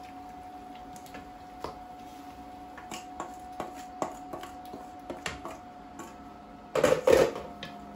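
Wooden spatula scraping and tapping thawed chopped spinach out of a stainless steel colander into a pot: scattered light taps and clicks, then a louder clatter near the end.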